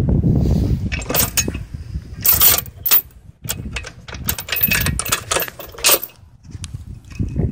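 Quick metallic clinks and clanks of a steel chain and log dog being worked on a sawmill bed, busiest from about one to six seconds in. It opens with a low rumble, and cloth brushes the microphone partway through.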